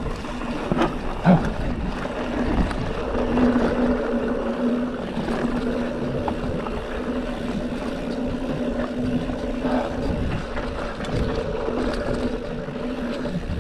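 Mountain bike rolling down a rutted dirt trail: tyres running over dirt and loose stones with a steady hum, and two sharp knocks about a second in as the bike hits bumps.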